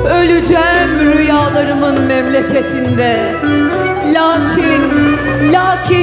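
A woman singing a Turkish song into a microphone, with instrumental accompaniment.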